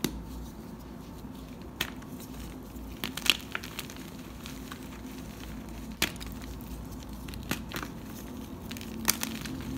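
Hands crushing and crumbling blocks of gym chalk topped with a cornstarch-paste layer and glitter. Irregular sharp crunches and crackles sound over a steady low hum, the loudest about three seconds in.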